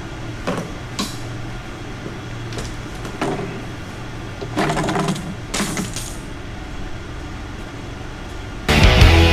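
Scattered knocks and clicks of tools and parts being handled during a truck teardown, over a steady low hum. Loud rock music starts suddenly near the end.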